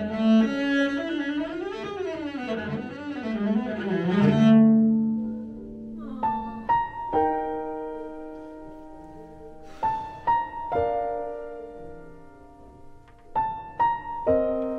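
Cello playing a slow melody with vibrato that settles on a held low note. Then a piano strikes chords in pairs, each pair ringing on for a few seconds before the next, about three and a half seconds apart.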